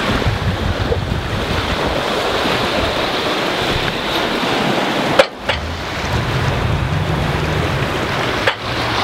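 Wind buffeting the microphone over water rushing past a sailboat's hull, with a single sharp knock about five seconds in and a fainter one near the end.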